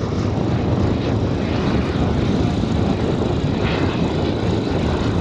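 Large-scale radio-controlled jet airliner models in flight, including a VC10 powered by four Wren Super Sport model jet turbines: a steady, even rushing drone with a faint high whine.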